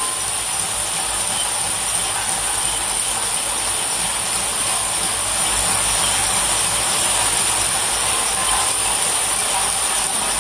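Automatic lotion pump assembly machine running at speed: vibratory bowl feeders and the rotary assembly table make a steady, even mechanical din with a high-pitched edge.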